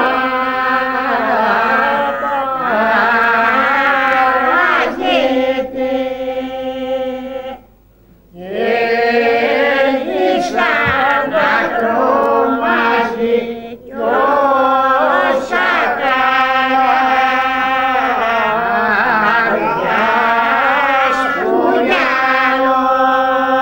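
Voices chanting as a soundtrack, a steady held low drone beneath a moving melody line, sung in long phrases that break off briefly twice, about eight and fourteen seconds in.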